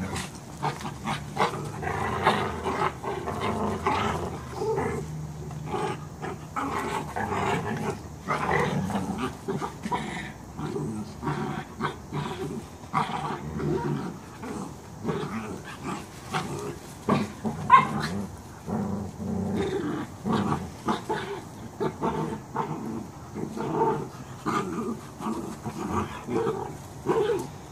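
Dogs growling continuously as they play-fight, a husky-type dog and two small dogs wrestling and mouthing at each other, with short sharp snaps and scuffles mixed in and one sharper, louder sound about two-thirds of the way through.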